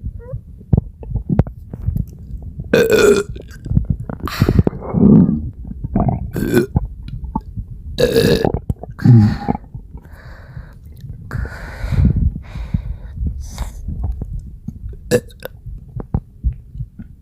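A person burping again and again, about eight burps, the loudest in the first ten seconds and softer ones after. Gurgling stomach sounds carry on low between them.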